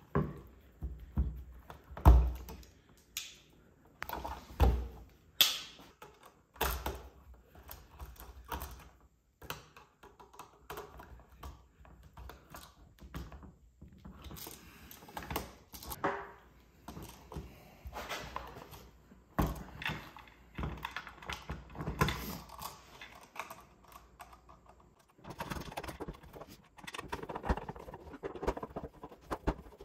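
Hand tools working on an electrical outlet: irregular clicks and knocks of wire strippers and a screwdriver against a receptacle and its plastic wall box, the loudest knock about two seconds in. Near the end it turns to a denser scraping as the screwdriver works the screws.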